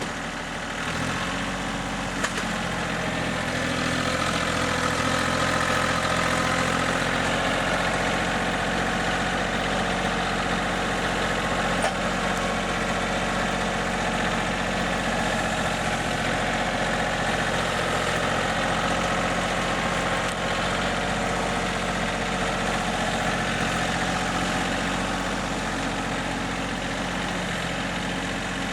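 An engine idling steadily, its hum settling in about a second in.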